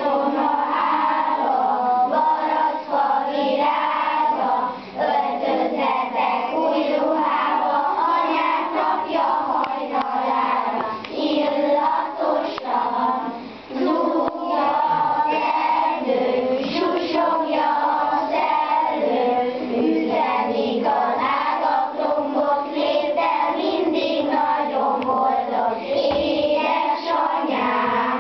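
A group of young children singing a Hungarian Mother's Day song together, the lyrics greeting their mothers.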